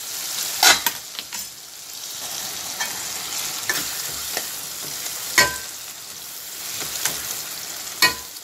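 Onions, tomatoes and garlic sizzling in oil in a non-stick kadai, with a steel spatula scraping and knocking against the pan about once a second as the softened tomatoes are pressed and stirred. The loudest knocks come a little past halfway and again near the end.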